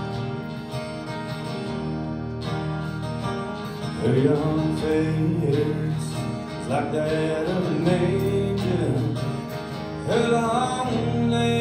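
Two acoustic guitars playing a song live, with a man's voice singing from about four seconds in.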